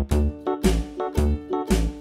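Instrumental background music with a steady beat of about two beats a second.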